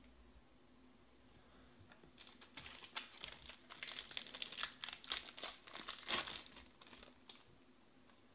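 A trading-card pack wrapper crinkling and tearing as it is opened by hand, a dense run of sharp crackles starting about two seconds in and stopping shortly before the end.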